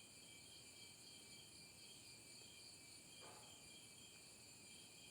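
Near silence, with a faint, steady chirring of crickets in the background.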